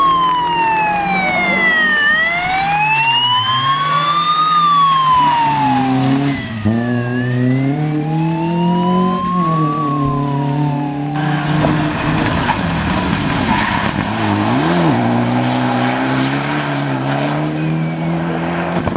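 A vehicle siren wailing slowly up and down over a car engine running at low, steady revs. The siren stops about eleven seconds in, leaving the engine running under a steady rushing noise, with one short rev blip.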